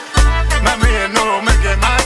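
Upbeat dance music with a heavy, regular bass beat and a melody over it.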